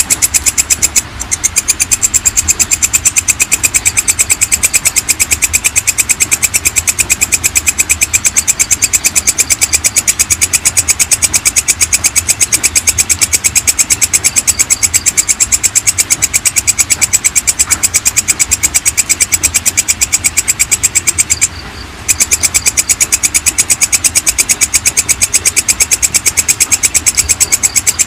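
Belalang kecek (walang kecek), a katydid, calling in a fast, even train of high chirping pulses. The call breaks off briefly about a second in and again about three quarters of the way through.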